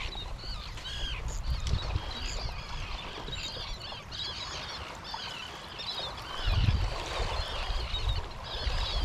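A flock of seabirds calling over a sand eel blitz: many short, arched, high cries overlapping without pause. A low rumble swells about six and a half seconds in.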